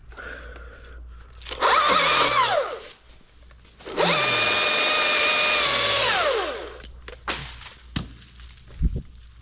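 Electric chainsaw whining at full speed twice, a short burst and then a longer steady run of about two seconds, each time winding down with a falling pitch when the trigger is let go. A few sharp knocks follow near the end.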